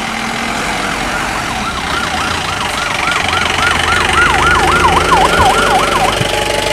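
Police jeep siren in a fast yelp, a wail rising and falling about four times a second that quickens and grows louder, then cuts off about six seconds in. The Mahindra Bolero's engine runs underneath as the jeep pulls up.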